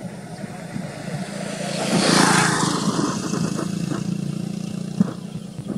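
A motor vehicle passing by, its engine hum and road noise swelling to a peak about two seconds in and then slowly fading. A single sharp click near the end.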